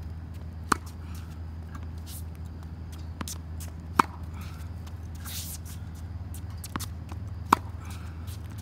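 Tennis ball struck with a racket on forehands: three sharp hits about three and a half seconds apart, each following a quieter bounce of the ball on the hard court. Shoes scuff on the court between shots over a steady low hum.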